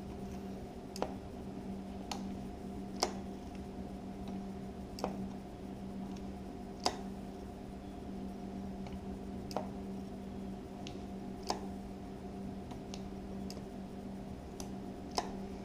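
Light, sharp clicks, about eight at uneven intervals, from hand work on a motorcycle's front brakes while they are being bled, over a steady low hum.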